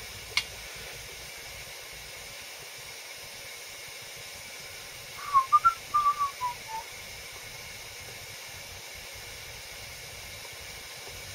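A person whistling a short run of quick notes that step downward, about five seconds in, over a steady faint hiss. A single light click comes about half a second in.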